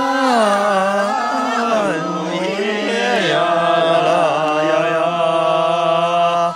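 One voice singing unaccompanied in a slow, chant-like style, with long drawn-out notes that bend and waver in pitch. The last note is held steady for about three seconds near the end.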